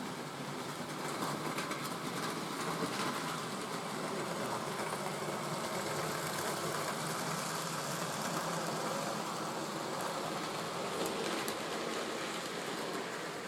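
A model train running on the layout: a steady whirr of the small motor and wheels on the track, with faint clicks now and then.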